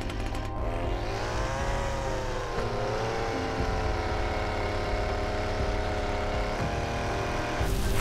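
String trimmer motor revving up and then running at a steady high speed as it cuts grass along a bed edge. A few quick snips of hedge shears sound at the very start, and a hiss of water spray comes in near the end.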